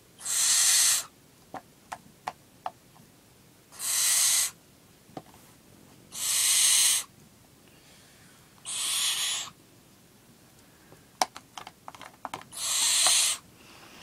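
Young barn owl giving five long, hissing screeches, each about a second long and spaced a few seconds apart: the rasping food-begging call of a barn owl chick. A few sharp clicks fall between the calls.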